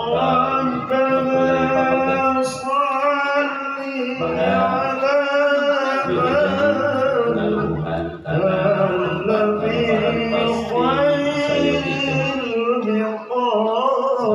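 Music with a man singing long, wavering held notes.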